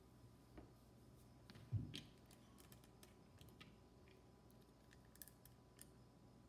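Near silence with faint scattered clicks of small plastic Lego pieces being handled, and one louder knock just before two seconds in.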